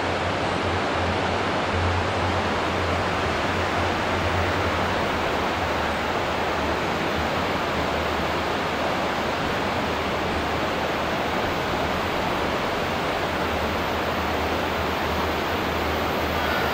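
Steady rushing of a wide, fast-flowing river, an even wash of noise with a low rumble underneath.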